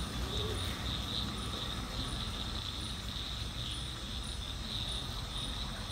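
Crickets chirping in a steady, pulsing high trill, over a low background rumble.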